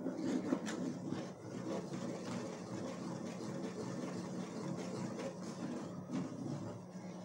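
Wooden spoon stirring a thick soap mixture in a pot, scraping and knocking irregularly against the sides, over a steady low hum.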